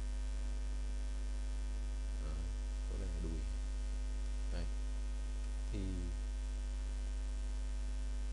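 Steady electrical mains hum in the recording, with a stack of fainter steady tones above it. A few faint, short vocal sounds come between about two and six seconds in.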